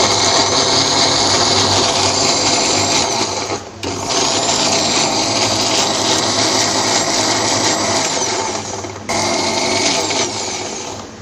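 Electric mixer grinder (mixie) running at full speed, grinding a chutney paste. It runs in three bursts, stopping briefly about four seconds in and again about nine seconds in, with a high whine that rises each time the motor spins back up, and it winds down near the end.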